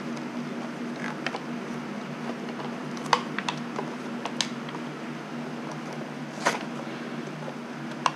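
Plastic-and-card retail packaging of an adjustable oil filter wrench being handled and pried open by hand: scattered sharp crackles and snaps, about half a dozen over several seconds, the loudest about three seconds in. A steady low hum runs underneath.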